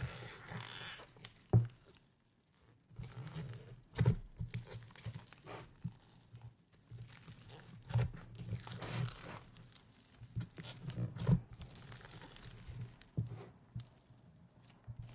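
Fluffy slime being pressed and stretched by hand, crackling and tearing as it pulls apart, with a few sharp pops at irregular moments.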